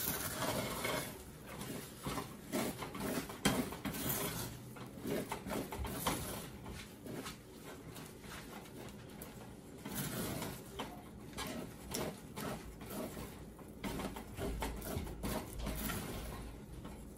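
A spatula stirring and mashing thick cauliflower fufu dough in a stainless steel saucepan, with irregular scraping and soft knocks against the pot.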